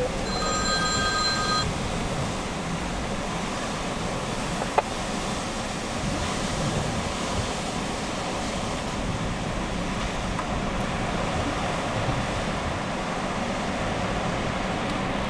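Steady wind rushing over the microphone. A short electronic tone, like a phone or radio alert, sounds for about the first second and a half, and a single sharp click comes about five seconds in.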